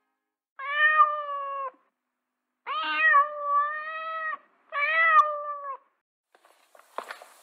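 A cat meowing three times, the middle meow the longest.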